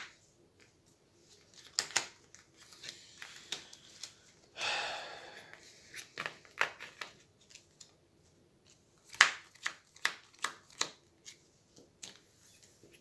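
Hero Realms playing cards being gathered up, slid across and tapped down on a tabletop: a run of sharp card slaps and clicks, with a longer sliding swish about five seconds in.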